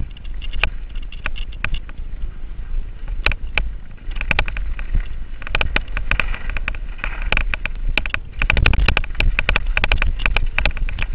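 Giant Reign full-suspension mountain bike rattling and clattering over a rough dirt singletrack at speed, in quick runs of sharp clicks that come thickest in the middle and toward the end. Wind buffets the handlebar-mounted microphone underneath as a steady low rumble.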